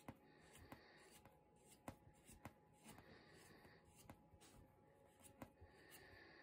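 Near silence, with three spells of faint scraping and a few light ticks as a hand twists a metal barrel extension onto an Artemis PP700SA air rifle barrel.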